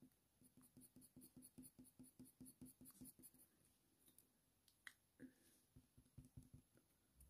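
Faint scratching of a Polychromos colour pencil on hot-press watercolour paper in quick short strokes, about four or five a second, the short flicks that lay down fur. The strokes stop about halfway, then come a single click and a few more faint strokes.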